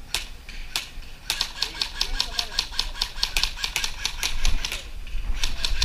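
Airsoft rifles firing: a couple of single shots, then a long run of rapid full-auto shots at about eight to ten a second that breaks off shortly before the end.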